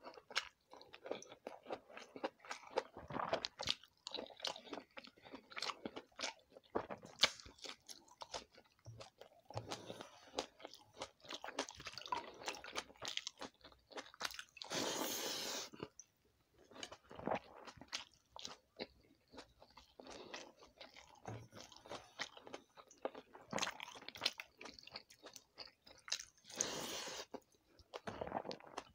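Close-miked eating of pakhala bhata (rice soaked in water) with fried vegetables: wet chewing and crisp crunching with many small mouth clicks. About halfway through and again near the end comes a longer, noisy sound of about a second, most likely a slurp of watery rice taken from the hand.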